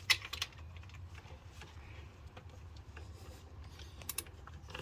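A few sharp metallic clicks from a flex-head ratchet wrench tightening a starter mounting bolt: a couple right at the start and another pair about four seconds in, over a faint low hum.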